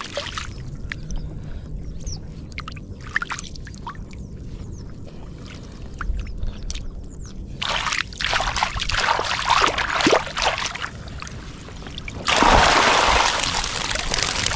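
Water splashing and running off as a fish trap is lifted out of the water: scattered small drips and splashes at first, then a pouring rush of water about eight seconds in, heaviest from about twelve seconds on.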